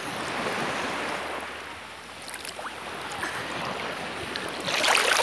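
Seawater lapping and sloshing right against the microphone. The noisy wash eases off about two seconds in, then builds again.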